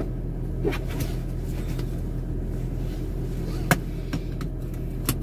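Car engine idling with a steady low hum, while a few sharp clicks and knocks sound over it; the loudest knock comes a little after halfway.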